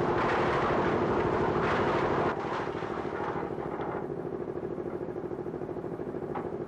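Concrete mixer's engine running with a steady, rhythmic throb. For the first two seconds or so, wet concrete rushes out of the tilted drum into a steel crane bucket, a gritty noise that stops abruptly.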